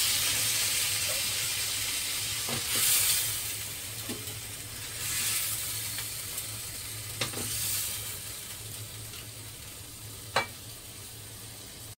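Stir-fried beef, onion and tomato sizzling in a hot wok. The sizzle swells with each scrape of a spatula and slowly dies away as the food is scraped out into a rice cooker's inner pot. A few sharp clicks come from the spatula knocking against the pans.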